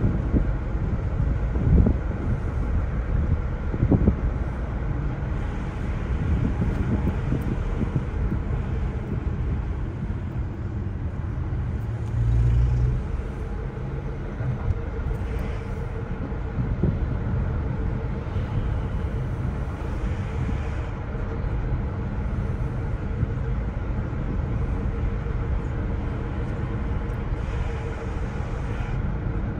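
Car driving on a mountain valley road, heard from inside the cabin: steady low rumble of engine and tyres. There are a few thumps in the first seconds and a brief louder low hum about twelve seconds in.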